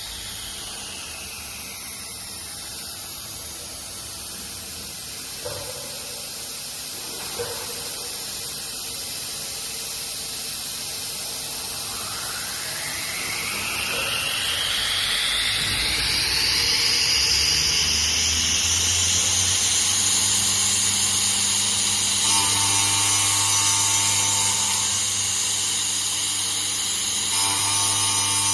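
Electric spindle motor of a CNC saw machine: its whine falls in pitch at the start, then after a quieter stretch with two light knocks it rises steeply as the motor spins up and holds a steady high whine over a low hum.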